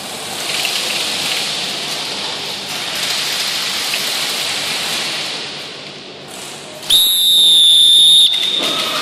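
Continuous dense clatter of airsoft guns firing and BBs striking the plywood walls of an indoor arena. About seven seconds in, a referee's whistle blows one loud, steady blast lasting about a second and a half, ending the round.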